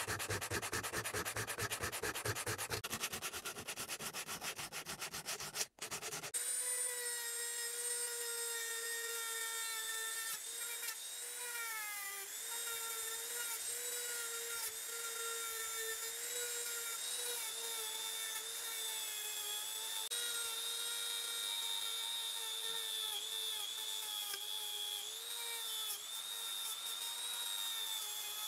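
Sandpaper rubbing back and forth in rapid strokes on the bare metal body of a McLaren P1 scale model. About six seconds in, a handheld rotary tool takes over, running with a steady whine as its small wheel is pressed against the metal shell, its pitch dipping now and then under the load.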